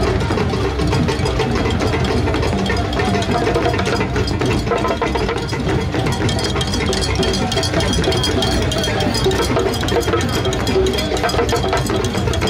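Loud, dense procession din: close-set percussion strikes mixed with crowd voices.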